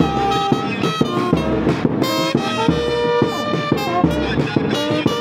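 Music led by brass horns, with held notes over a percussive beat.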